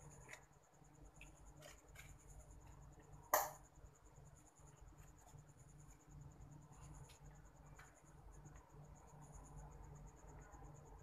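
Small paintbrush dabbing and scraping acrylic paint on a wood panel, faint scattered taps and scratches with one sharp click about three and a half seconds in. A steady high insect trill runs underneath.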